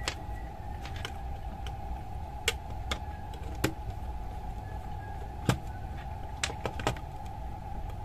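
Scattered small clicks and taps of a screwdriver and wire ends against a plastic screw terminal block as probe wires are fastened into it, about nine in all, over a steady hum.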